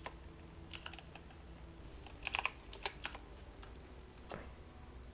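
Computer keyboard keys being pressed: irregular single clicks, with a quick run of several a little over two seconds in.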